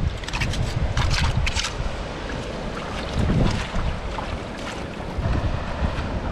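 Wind buffeting the microphone over the wash of the sea, with a quick run of short clicks and knocks in the first couple of seconds.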